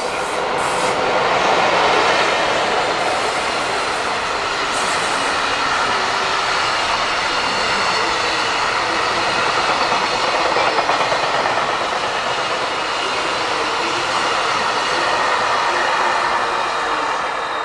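Freight train hauled by an EF65 electric locomotive rolling past, its tank cars and container wagons clattering steadily over the rail joints. The noise swells about two seconds in and then holds steady as the long line of wagons goes by.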